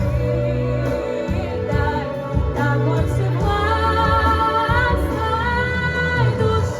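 A song with a woman singing long held notes over the backing music.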